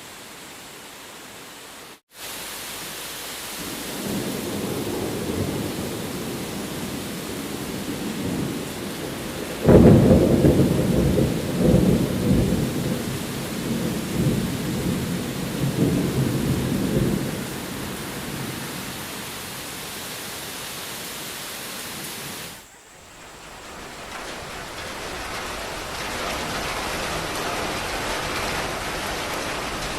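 Heavy rain falling steadily, with thunder: a low rumble builds a few seconds in, then a loud clap about ten seconds in rolls on for several seconds before fading back into the rain.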